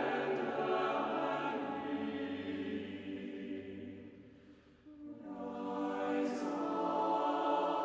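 A choir singing held chords; the chord dies away about four and a half seconds in and a new one begins soon after.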